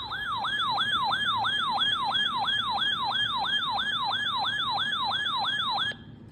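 Electronic siren-style alert tone opening an emergency weather warning: a rapid falling yelp that repeats about three times a second, then cuts off suddenly about six seconds in.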